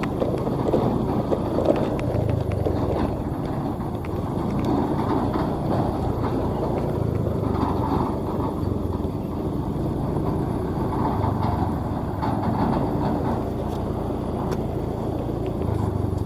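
Maxxi J Automatic combine harvester's engine running steadily as the machine travels along the road.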